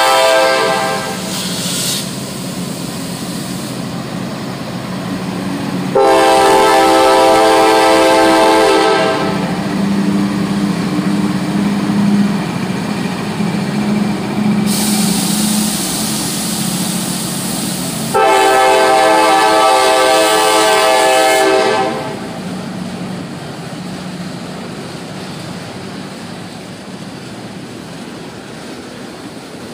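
Diesel freight locomotive horn: a blast trailing off about a second in, then two long blasts of about three seconds each, over the steady rumble of a passing CSX freight train of locomotives and autorack cars. The rumble fades over the last several seconds.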